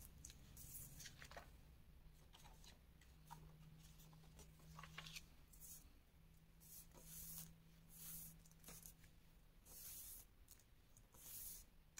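Near silence with faint, short paper rustles and swishes every second or so: hands pressing and smoothing a glued paper strip onto a sheet of tracing paper.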